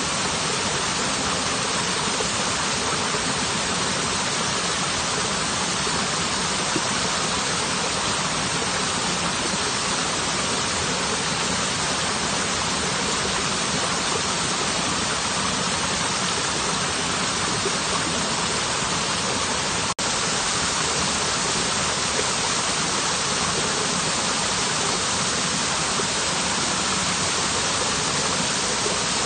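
Waterfall: a steady, even rush of falling water, with a momentary dropout about two-thirds of the way through.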